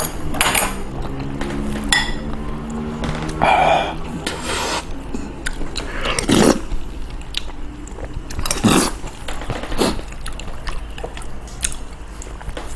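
Eating sounds: utensils clinking and scraping against dishes at irregular moments, with chewing of kimchi stew and rice.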